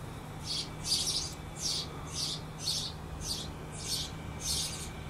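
A bird chirping over and over, short high chirps about twice a second, over a faint steady low hum.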